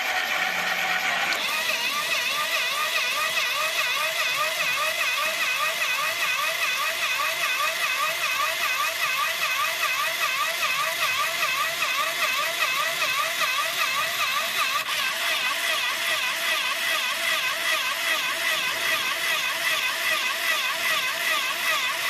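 Small electric motors of a model drilling machine running. A steady motor whine changes about a second in to a whine that wavers up and down in a regular rhythm, which goes on unbroken while the drill works on the last hole.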